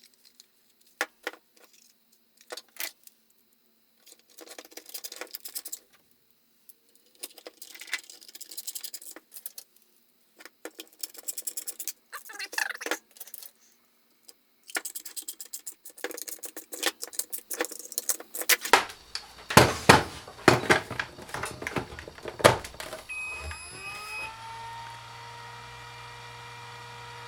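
Clicks and rattles of a plastic Makita 18V battery pack and its parts being handled. Near the end a small motor or fan spins up, its pitch rising and then holding as a steady hum.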